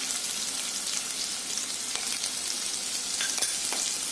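Sliced onions, green chillies and curry leaves frying in hot oil in a pot, a steady sizzle with a few faint crackles about three seconds in.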